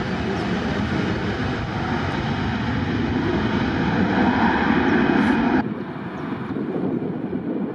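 Airbus A320-family airliner's jet engines running at high power on the runway, a heavy roar that grows louder, then cuts off abruptly about five and a half seconds in, leaving a fainter, duller rumble.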